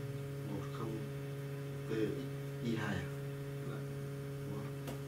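Steady electrical hum with a few faint words of speech now and then.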